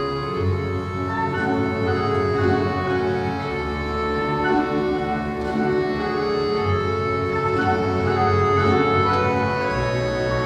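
Russian folk-instrument orchestra of domras and balalaikas playing a piece, with long held chords over a low bass line that moves to a new note every few seconds.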